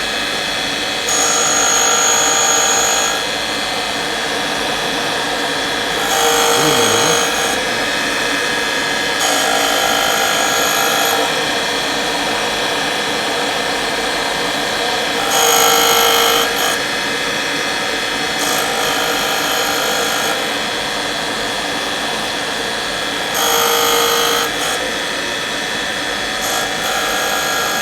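Surface grinder running with a steady mechanical hum. Louder grinding stretches of one to two seconds come back every few seconds.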